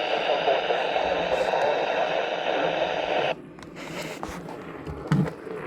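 Hiss and static from a weather radio receiver, which cuts off suddenly a little over three seconds in. A few light clicks follow, and a short knock comes near the end.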